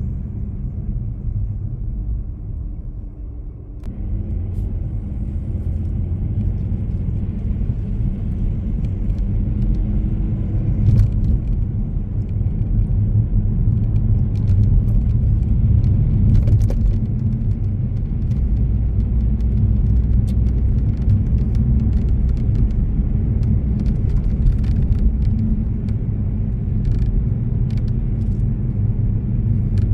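Car on the move: a steady low rumble of engine and road noise, briefly easing a few seconds in, with scattered light clicks and rattles in the second half.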